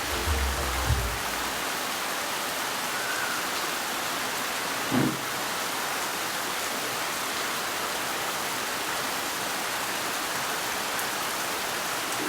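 Steady heavy rain pouring down, an even hiss. There is a single short low thump about five seconds in.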